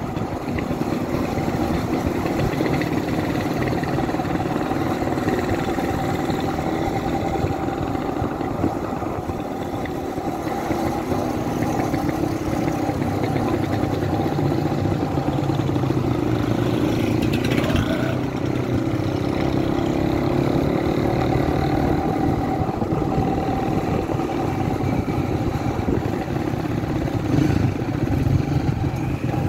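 Motorcycle engine running steadily at riding speed, heard from the rider's seat with road noise.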